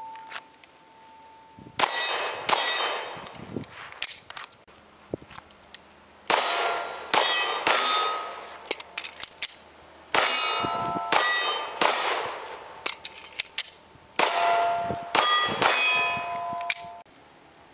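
Glock 19 9mm pistol fired in four quick strings of shots, with steel targets ringing after the hits. The clanging rings linger over each string before short quiet gaps.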